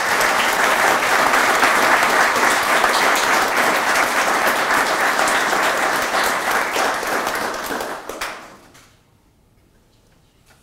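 Seated audience applauding, a steady patter of many hands clapping that fades out about eight or nine seconds in.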